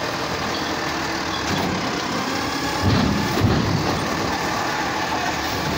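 Automated side-loader garbage truck running while its hydraulic arm holds a trash cart upturned over the hopper to empty it. A couple of heavier thumps come about three seconds in.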